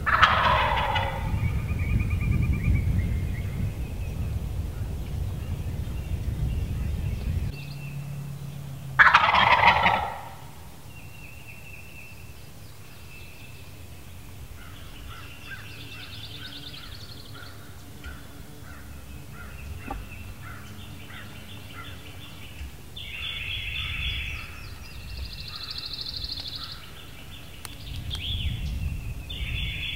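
Wild turkey gobbler gobbling twice, loud rattling calls about nine seconds apart that fall in pitch. Songbirds twitter faintly through the second half.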